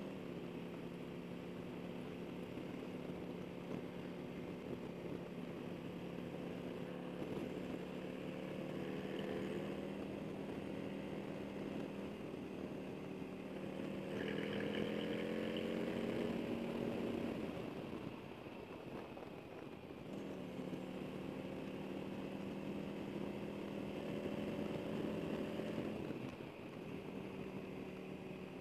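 Harley-Davidson Road King Special's V-twin, fitted with Vance & Hines slip-on mufflers, running under way. The engine note holds steady, climbs for a few seconds about halfway through, then falls away as the throttle closes. It picks back up and drops off again near the end.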